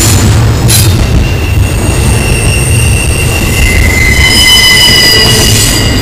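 Double-stack intermodal freight train rolling past close by: a loud low rumble of steel wheels on rail, with high wheel squeal tones that come and go and slide slightly in pitch, and a sharp click about a second in.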